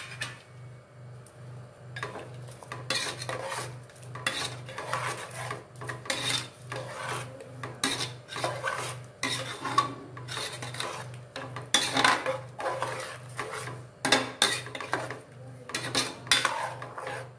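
Steel ladle stirring thick masala gravy in an aluminium pressure cooker, scraping against the pot's bottom and sides in repeated rasping strokes that come in short runs every second or two, with brief pauses between them.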